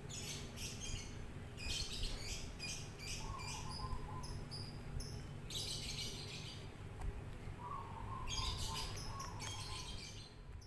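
Birds chirping outdoors in repeated bursts of short high notes, over a steady low background rumble.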